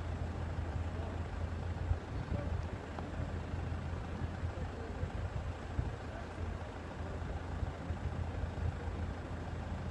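Steady low engine rumble of an idling vehicle, unchanging throughout.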